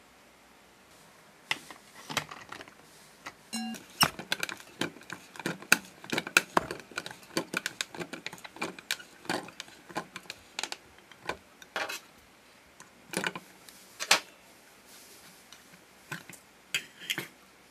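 Bandai Cooking Puchi plastic toy noodle press being fitted together and worked by hand, making irregular hard plastic clicks and knocks, some in quick runs. About three and a half seconds in there is a brief squeak.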